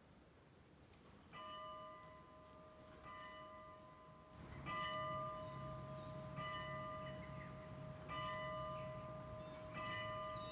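A single church bell tolling, struck six times about every one and a half to two seconds, the first stroke about a second and a half in, each note ringing on into the next.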